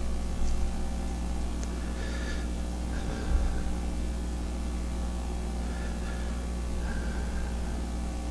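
Steady low electrical hum of room background noise, with a few faint rustles and one soft knock a little after three seconds in.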